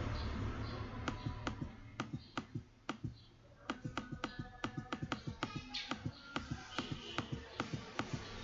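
Computer mouse button clicking: a few spaced clicks, then from about four seconds in a quick run of about four to five clicks a second.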